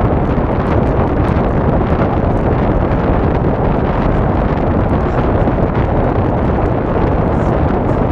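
Loud, steady wind noise buffeting the microphone of an action camera moving along a road.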